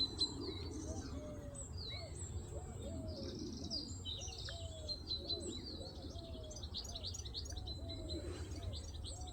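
Woodland birds chirping, with a short low call, a quick rise then a falling tone, repeated about twice a second throughout.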